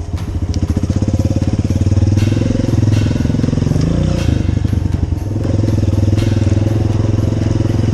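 Honda CRF230F dirt bike's air-cooled single-cylinder four-stroke engine running loud as the bike rides along. The engine note dips briefly about four seconds in and then picks up again.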